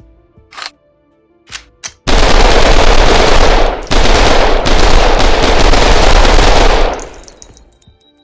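Uzi submachine gun: two short sharp reports, then a long full-automatic burst of about five seconds with a brief break partway through, trailing off as it ends.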